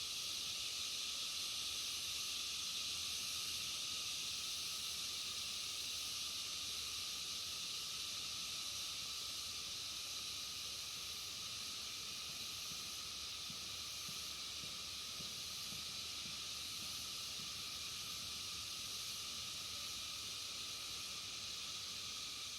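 Dense insect chorus: a steady, high shrill hiss with a fainter lower tone beneath it.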